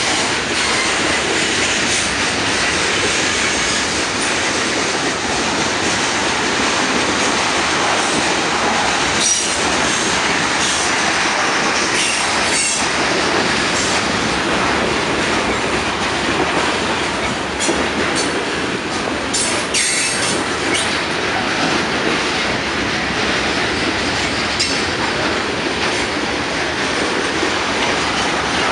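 Freight train of tank cars rolling past: a steady rumble and rush of steel wheels on rail. Short, sharper high wheel squeals and clanks cut through a few times, most of them in the middle.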